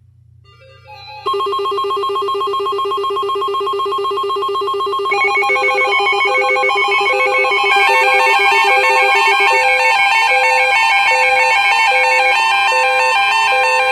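Weather radio alert: receivers sounding their alarms for a severe thunderstorm warning. A trilling alarm starts abruptly about a second in, more alarm tones and a regular beeping join around five and eight seconds, and a steady alert tone takes over near the end, with a rising tone entering.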